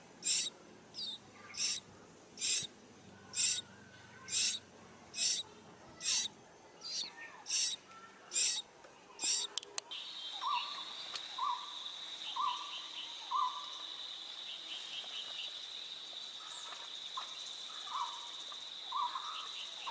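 Nestling birds giving hoarse, hissing begging calls, about one a second. About ten seconds in, these give way abruptly to a steady high whine with short chirping calls about once a second.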